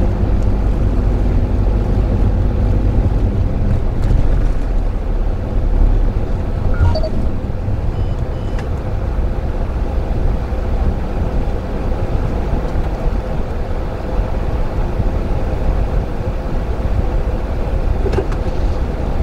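Steady low engine and road rumble inside the cabin of a 2013 Daihatsu Move Custom RS kei car in slow traffic, with a couple of faint short beeps about eight seconds in.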